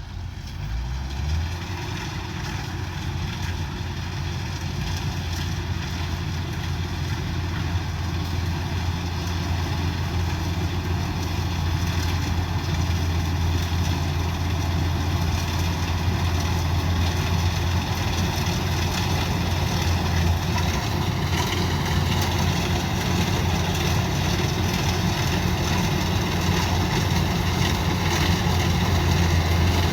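Combine harvester engine running steadily, growing gradually louder.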